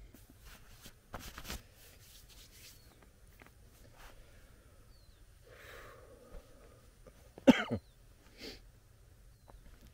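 A man gives a loud, short cough about seven and a half seconds in, with a fainter one about a second later. Before it, brief rustling of fabric as a scarf is handled.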